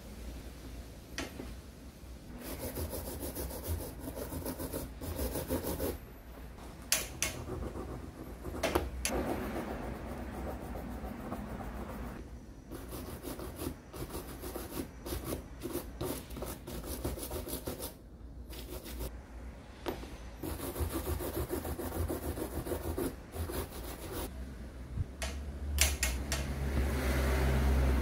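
Hand filing or rubbing down a part with an abrasive hand tool: runs of rough rasping strokes, broken by short pauses and a few sharp clicks.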